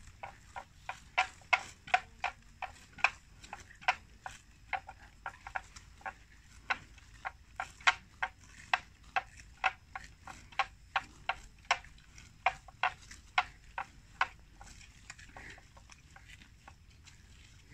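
Water buffalo chewing a mouthful of wet water plants: a steady run of crisp crunching clicks, about two a second, that stops a little before the end.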